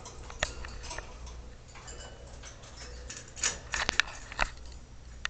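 Irregular clicks and taps over a low steady hum, with a cluster of sharper clicks between about three and a half and four and a half seconds in.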